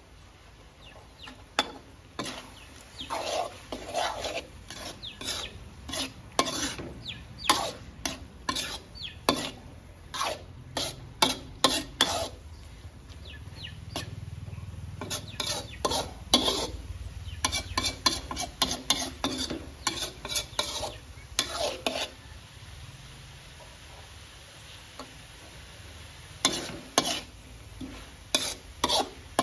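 A metal spatula scrapes and clanks against a steel wok during stir-frying, in quick irregular strokes, over a light frying sizzle. The strokes ease off for a long stretch in the middle and pick up again near the end.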